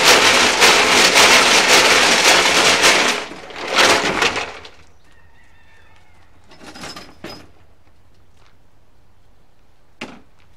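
Gravel rattling and churning inside a rusty steel fuel tank as the tank is shaken hard by hand, scouring rust off its insides. The shaking stops about three seconds in, with one last short shake around four seconds, and a single short knock comes near the end.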